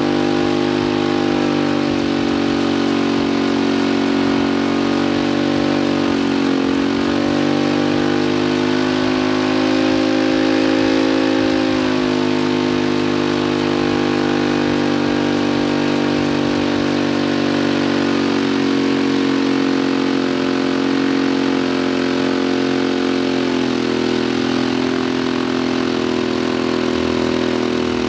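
Turbocharged Predator 212 single-cylinder four-stroke engine running steadily under load on a water brake dyno, its speed sagging briefly and recovering a couple of times and rising a little near the middle.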